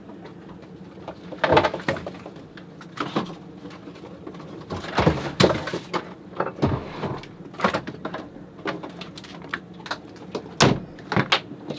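Irregular knocks, clunks and short rattles of gear being handled and moved about, over a steady low hum.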